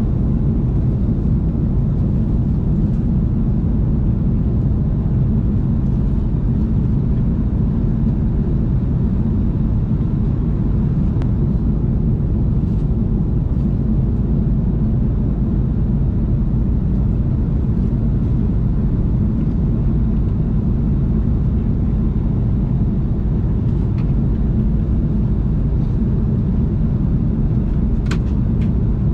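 Steady low roar of an Airbus A330-300 cabin at cruise: engine and airflow noise heard from an economy seat. A few faint clicks sound near the end.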